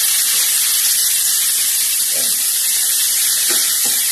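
Onions, garlic and sliced tomatoes sizzling steadily in hot oil in a frying pan while being sautéed.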